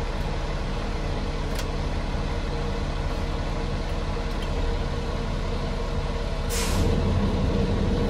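Fire engine's diesel engine idling steadily, heard from inside the cab, with a faint click early and a short sharp hiss of compressed air from the truck's air system about six and a half seconds in; the engine note is louder and deeper after the hiss.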